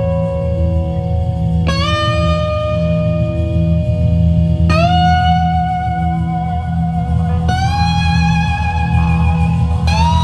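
Live blues-rock band: an electric slide guitar holds long singing notes, sliding up into each new one about every three seconds and climbing in pitch, with some vibrato near the end, over a steady low backing.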